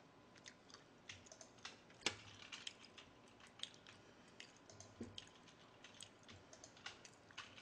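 Faint, irregular clicking of typing on a computer keyboard, with one sharper click about two seconds in.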